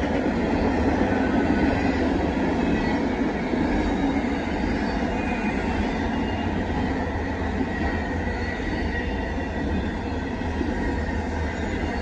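Double-stack intermodal freight train's container cars rolling past: a steady rumble of steel wheels on the rails.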